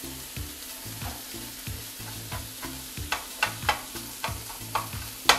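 Longaniza sausage sizzling as it fries in a frying pan, with a slotted spatula scraping and tapping against the pan as it breaks up the meat. The scrapes come quicker and louder in the second half, the loudest near the end.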